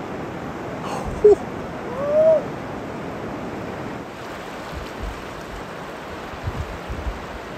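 Fast river rapids rushing steadily. About a second in and again about two seconds in, a voice gives two short whoops, the second rising and falling.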